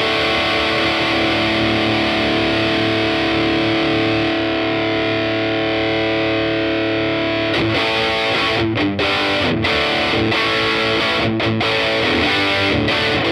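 Electric guitar (Yamaha Revstar) played through a Tube Screamer-style overdrive pedal into a cranked Laney CUB-Super 12, a 15-watt all-valve combo with one 12-inch speaker, giving a loud driven tone. A held chord rings for about seven seconds, then gives way to short, choppy chords with brief gaps. The Tube Screamer in front tightens the high-gain sound and takes out bottom-end flabbiness.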